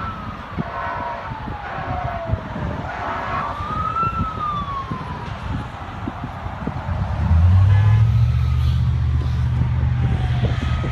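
Emergency vehicle siren wailing, its pitch sweeping slowly up and down every few seconds. About seven seconds in, the low rumble of a heavy vehicle's engine comes in and becomes the loudest sound.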